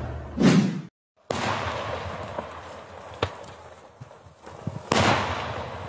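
The intro music ends and, after a brief silence, daytime aerial fireworks go off: sharp single bangs echo across open country with a lingering rumble between them. The loudest bang comes near the end and dies away slowly.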